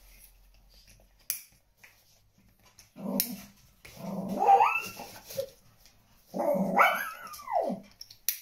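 A dog whining in three drawn-out calls that rise and then fall in pitch. Two sharp clicks come from a pushchair harness buckle being fastened, one about a second in and one near the end.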